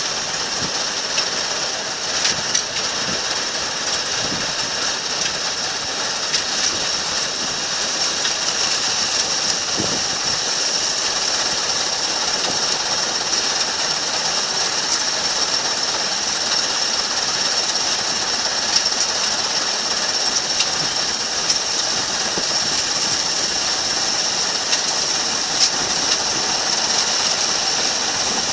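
Combine harvester running steadily, a continuous engine and machinery noise with a high hiss.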